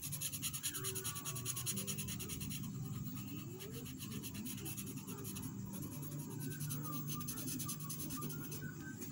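A marker tip rubbing quickly back and forth on paper as a drawing is coloured in, a fast scratchy scribble with a few brief pauses.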